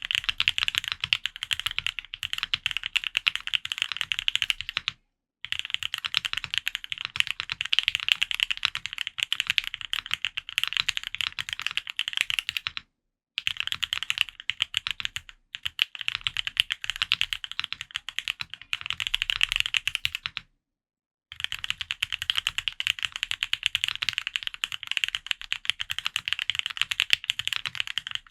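Fast typing on an F1-8X custom mechanical keyboard with lubed Gateron Oil King linear switches, PBT keycaps and an aluminium plate. The keystrokes come in dense runs, broken by short pauses about five, thirteen, fifteen and twenty seconds in.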